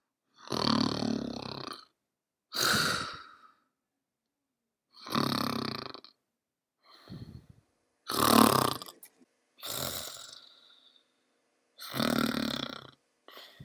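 A person snoring: a series of rattling snores about a second long each, coming every two to three seconds with silent gaps between. Snoring of this kind is the sound of a narrowed upper airway.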